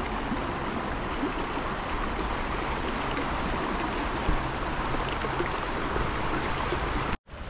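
Shallow river flowing steadily over stones and gravel, a constant rush of water that cuts off suddenly near the end.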